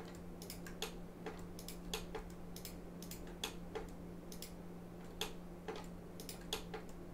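Light, irregular clicking of a computer mouse and keyboard, roughly one to three clicks a second, over a faint steady low hum.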